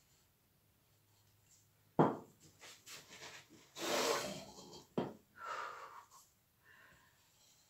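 Handling noise from a paint-filled plastic cup being flipped down onto a stretched canvas and lifted off. A sharp knock about two seconds in is the loudest sound, with another about five seconds in, between stretches of rubbing and scraping.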